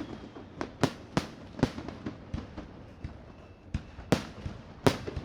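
Fireworks going off in an irregular string of sharp bangs, several a second at times, with a softer stretch in the middle.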